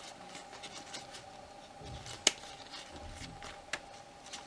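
Stacks of game cards being handled and sorted by hand: faint rustles and light clicks of card edges, with one sharp click about two seconds in and a smaller one near the end. A faint steady hum runs underneath.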